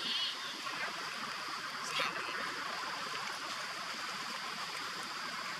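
Steady outdoor hiss with a steady high drone, broken by a short high squeal right at the start and a sharp click about two seconds in.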